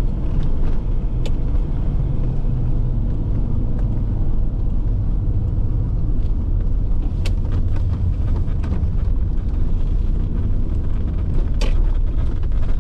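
Land Rover Defender 90 being driven, heard from inside the cabin: a steady low rumble of engine and road noise, with a few sharp clicks.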